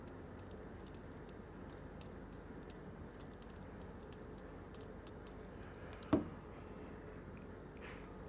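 Faint clicks and ticks of small parts and tools being handled, with a single sharp knock about six seconds in, like a small tool or part set down on a hard surface.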